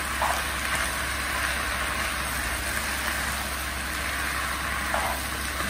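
Rice noodles and vegetables sizzling in a hot non-stick wok as they are tossed with a spatula, an even steady frying hiss over a constant low hum.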